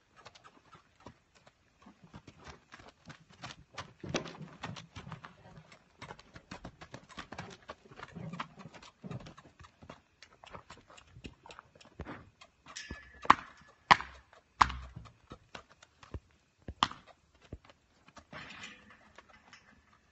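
Hoofbeats of a young sorrel Quarter Horse colt moving about a dirt pen: an uneven run of steps, with a few much louder, sharper knocks about two-thirds of the way through.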